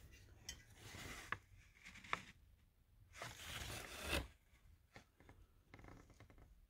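Handling noise from a small gilded metal case being turned over in the hands: faint rubbing and scraping in two stretches, with a few sharp clicks.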